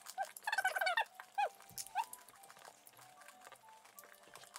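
A toddler's faint, high squeals and whines: several short calls that slide up and down in pitch during the first two seconds, then only faint room sound.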